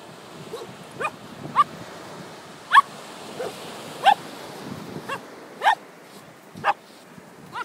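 Small spaniels yipping excitedly over a flounder on the sand: about nine short, high barks at irregular intervals, each rising sharply in pitch.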